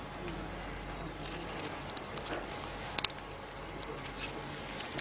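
Quiet room background with faint handling ticks and a sharp double click about three seconds in.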